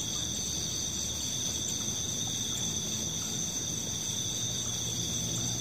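Steady chorus of night insects: several high, unbroken tones held level throughout, over a faint low hum.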